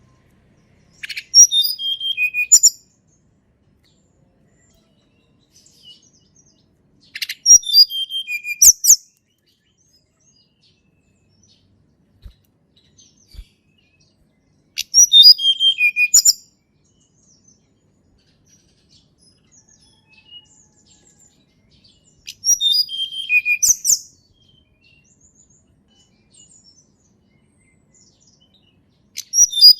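Tledekan gunung (a small songbird) singing a repeated song phrase about every seven seconds. Each phrase is a quick run of notes falling in pitch, ending with a couple of higher notes. Five phrases, the last starting near the end.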